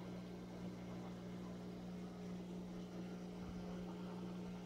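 Aquarium pump running: a steady low hum with a faint hiss of moving water.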